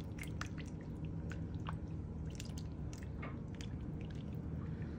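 Lumpy liquid mixture poured from a glass bowl onto broccoli and noodles in a casserole dish: soft wet splats and drips, over a steady low hum.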